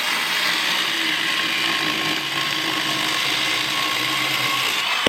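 Vintage Milwaukee 6210 electric chainsaw running steadily at full speed, a loud motor and chain whine that cuts off at the very end.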